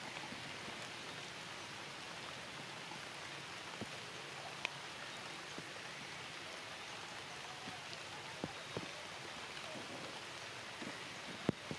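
Steady rain hissing on foliage and stone, with a few sharp ticks of drops or taps, the sharpest near the end.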